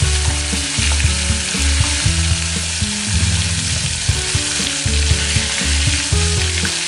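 Koi (climbing perch) deep-frying in hot oil in a kadai over a high gas flame: a steady, even sizzling, with a metal spatula stirring the fish in the oil.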